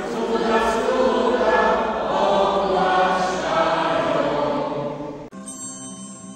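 Congregation singing a Christmas carol together in a church. About five seconds in, the sound cuts abruptly to quieter, cleaner singing by a small group.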